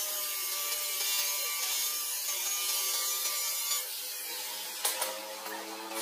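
Angle grinder with an abrasive cut-off disc cutting through a steel rod: a steady high whine over a grinding hiss. About four seconds in the cut ends and the sound drops, and a sharp metallic click follows about a second later.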